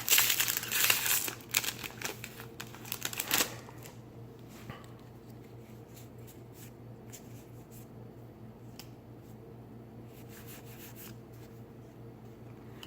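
Foil booster pack wrapper being torn open and crinkled, loudest in the first second and a half with a few more crackles up to about three and a half seconds in, then cards being handled and slid with light ticks and rustles.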